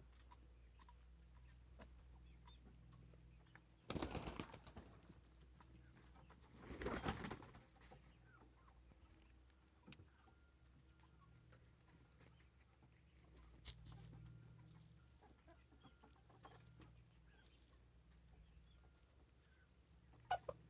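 Quiet backyard with faint, soft bird calls, likely from the chickens. Two short bursts of noise, each about a second long, come about four and seven seconds in.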